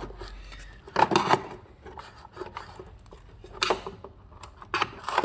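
Clicks and scrapes of a plastic fan control module being pried and pulled off its double-sided tape with a flat screwdriver. The loudest knock comes about a second in, with further handling clicks later on.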